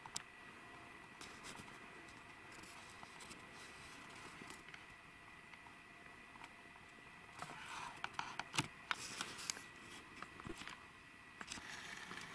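Handheld camera handling noise: scattered clicks and rustles, thickest about eight to ten seconds in, over a faint steady high whine.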